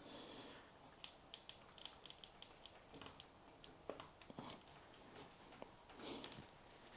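Faint, irregular small clicks and light rustles from hands working on small PC water-cooling parts, close to near silence.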